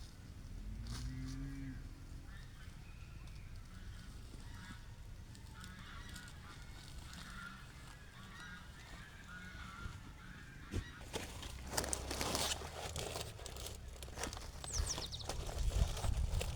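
Farm fowl calling repeatedly, with scattered knocks and rustling in the last few seconds.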